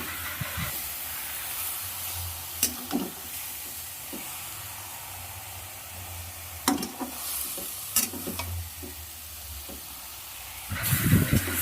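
Marinated chicken and onions sizzling in a dry kadai with no oil, stirred with a spatula. A few sharp clinks and scrapes of the spatula against the pan can be heard.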